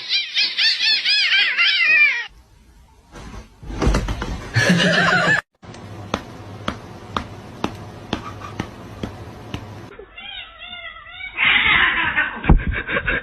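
Cats meowing and yowling across several short clips: a quick run of wavering calls at the start and again about ten seconds in. In between comes a stretch of regular clicks, about two a second.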